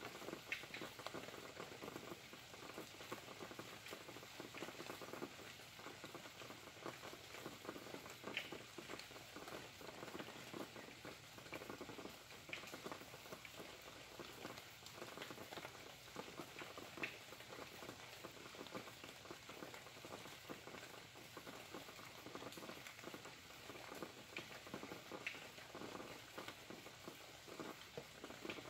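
Faint rain falling steadily at night: a dense patter of drops with a sharper drip tick every few seconds.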